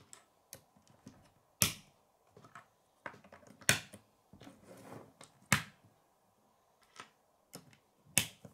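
Plastic K'nex rods and connectors clicking as they are snapped together and set down on a wooden tabletop: a string of sharp clicks and taps, four louder ones about two seconds apart.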